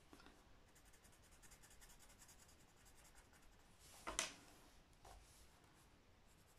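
Faint scratching of a coloured pencil shading on paper, with a short knock about four seconds in.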